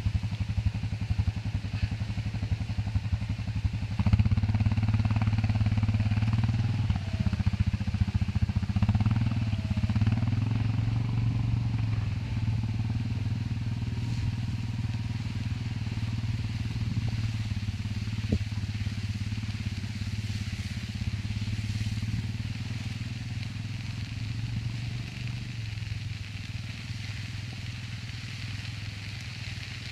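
ATV engine running steadily. It grows louder about four seconds in, then slowly fades.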